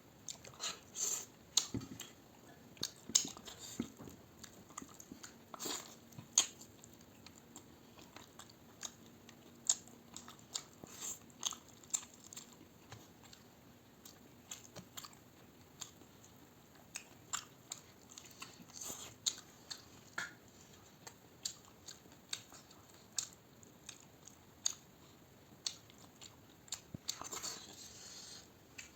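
A person eating close to the microphone: irregular chewing, lip smacks and crunchy bites, a few sharp clicks at a time with short pauses between.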